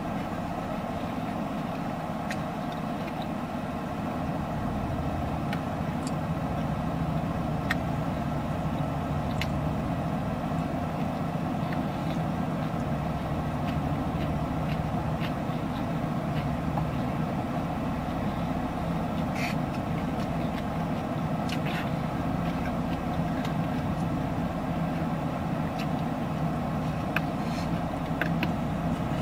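Steady hum inside a car's cabin with the engine running, and scattered small clicks and rustles of someone eating.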